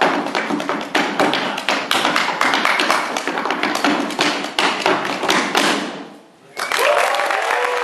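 Body percussion: fast stepping and stomps on a wooden stage mixed with hand claps and body slaps, a dense clatter of strikes that ends about six seconds in. Applause with cheering breaks out near the end.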